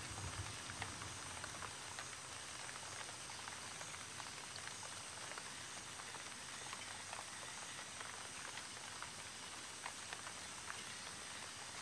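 Steady light rain patter with scattered small drips and ticks.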